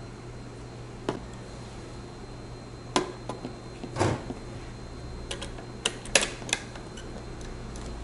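Hands handling a desktop motherboard: a scatter of sharp clicks, a heavier knock about four seconds in as the board is set down on its cardboard box, then a quick run of crisp clicks as the CPU socket is worked.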